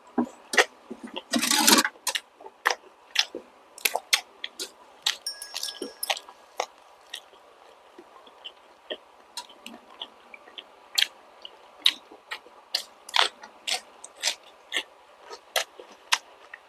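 Close-miked mouth sounds of a person eating balut (fertilized duck egg) with vegetables: chewing with repeated wet smacks and crunches at an irregular pace, and a louder stretch of crunching about a second and a half in.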